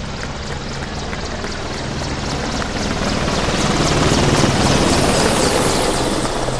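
Large military helicopter flying low overhead, its rotor blades beating in a regular rhythm over the steady engine noise. It grows louder to a peak about four to five seconds in, then fades.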